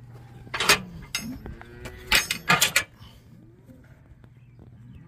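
Steel cattle alleyway and chute clanking and rattling several times as a bull pushes along it, a sharp clang a little under a second in and a run of clanks around two to three seconds in, with cattle mooing low.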